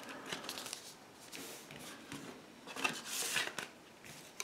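Paper and card CD sleeves rustling and sliding as they are handled, with a louder rustle about three seconds in.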